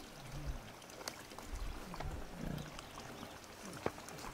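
A pig grunting faintly, a few short low grunts, with a couple of light clicks.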